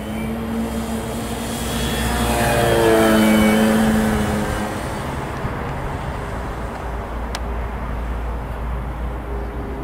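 Radio-controlled Cessna L-19 Bird Dog model plane's motor running at takeoff power, growing louder to a peak about three seconds in, its pitch falling as it goes by, then running on more quietly.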